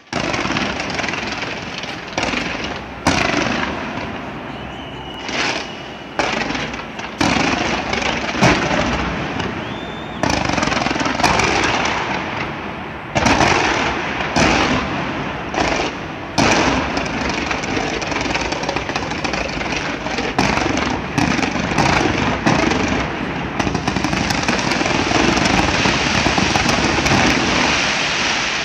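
Fireworks display: a dense barrage of sharp bangs every second or two over continuous crackling, with a brief whistle about five seconds in. The crackling thickens into a steady loud roar of bursts near the end.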